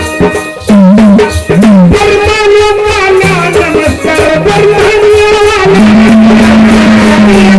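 Gondhal folk song: a man singing over drum and rattle accompaniment. His voice bends and wavers through short phrases, then holds one long steady note for the last couple of seconds.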